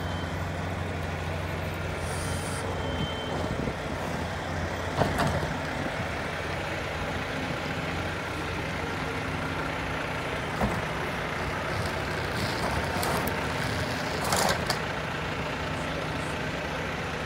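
Heavy-haul semi truck's diesel engine running steadily as it slowly tows a long bridge-girder load on a multi-axle trailer. Two brief louder sounds stand out, one about a third of the way in and a short hiss near the end.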